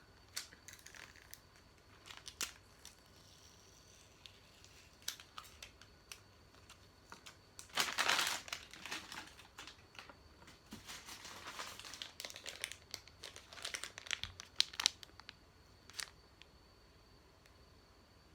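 Food packaging crinkling and being torn open by hand, with scattered clicks and light knocks. The loudest crinkling comes about eight seconds in.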